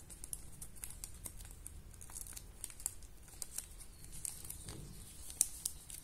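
Small thin clear plastic bag crinkling as a matchbox is slid into it and handled: a scatter of small crackles, with a sharper one near the end.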